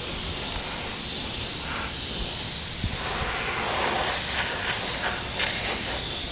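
Iwata airbrush spraying paint: a steady, high hiss of compressed air through the nozzle.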